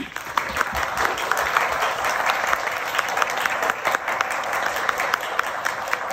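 Audience applause, breaking out suddenly and continuing as dense clapping with some single sharp claps standing out.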